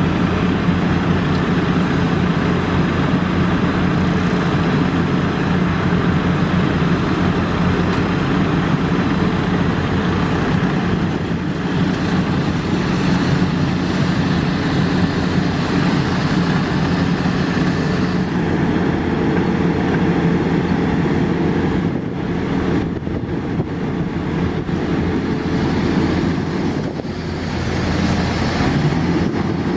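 Heavy diesel paving machinery, an asphalt paver with rollers and trucks, running steadily with a continuous low engine drone. The level dips briefly twice in the second half.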